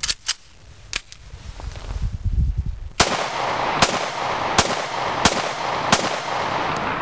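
Heckler & Koch USP pistol being fired: a few shots in the first second, then a series of five shots about three-quarters of a second apart over a steady hiss, with fainter shots near the end.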